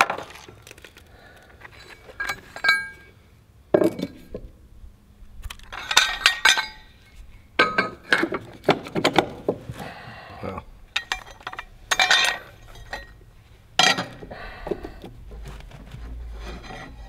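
Loose steel hardware being handled: clusters of sharp metallic clinks, some with a brief ring, every second or two.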